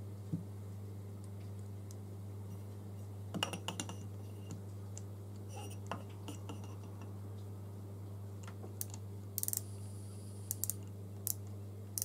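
Light metallic clicks and clinks as an aluminium piston is handled and set against the anvils of a bench micrometer, coming in small scattered clusters over a steady low hum.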